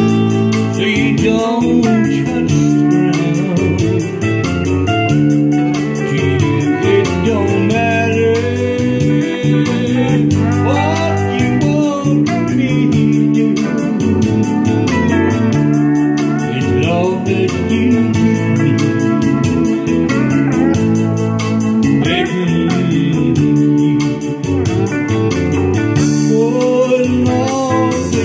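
A live country band playing an instrumental passage: pedal steel guitar with gliding notes, electric guitar and electronic keyboard over a steady beat.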